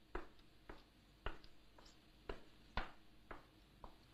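Footsteps going down a staircase: evenly spaced sharp steps, about two a second.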